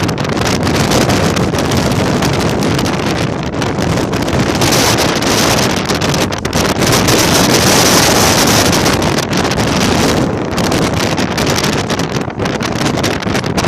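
Strong mountain wind buffeting the microphone: a loud, continuous rush of wind noise that eases briefly a few times.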